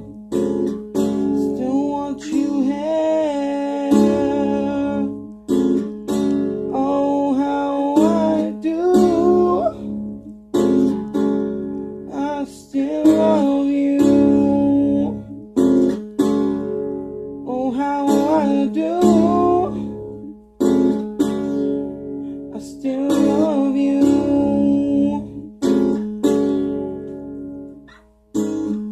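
Strummed guitar accompanying a man singing a slow love song.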